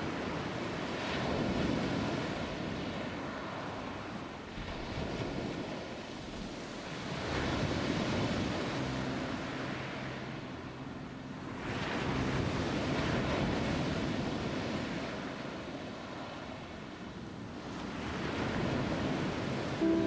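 Wind and sea surf: a steady rushing noise that swells and eases every few seconds.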